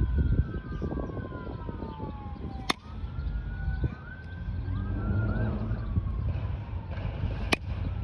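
A siren wailing, its pitch sweeping slowly up and down, with two sharp cracks of a bat hitting pitched balls about five seconds apart.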